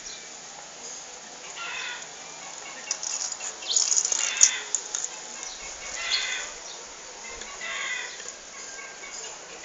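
Short bird calls, like hens clucking, come every couple of seconds, with a single sharp click about four and a half seconds in.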